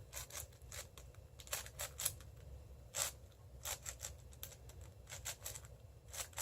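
A 6x6 speedcube being turned quickly, its plastic layers clicking and clacking in an irregular run of faint clicks.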